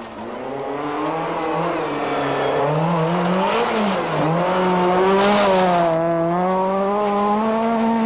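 Skoda Felicia Kit Car rally engine at high revs, its pitch climbing, dipping and climbing again as the car accelerates past. About five seconds in there is a brief hissing rush over the engine note.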